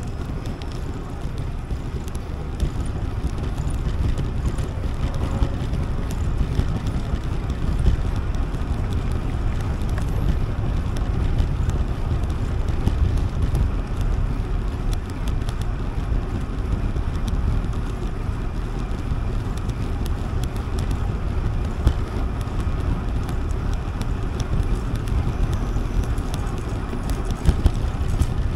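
Wind buffeting the microphone while riding a bicycle: a steady low rumble with faint scattered ticks.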